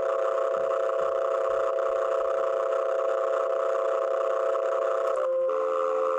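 A steady drone made of several held tones. It drops out briefly about five seconds in and resumes at slightly lower pitches.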